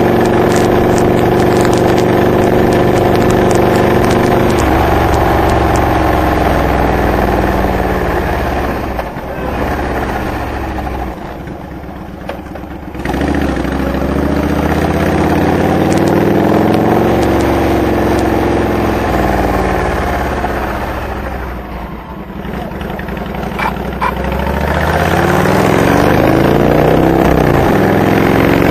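2007 Honda VTX 1300R's V-twin running through Hard Krome K2 pipes with Michael's Resonator baffles while riding. The revs rise and fall, it goes quieter off the throttle twice, and it pulls back up with rising revs near the end.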